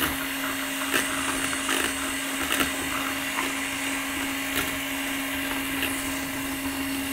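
An electric hand mixer, at least 40 years old, runs steadily with an even motor hum as its beaters whip egg whites into foam in a plastic bowl. Faint clicks come now and then.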